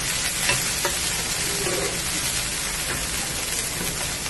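Chopped onions and spring onion stalks sizzling in hot oil in a frying pan, with a wooden spoon stirring and scraping the pan a few times in the first second or so.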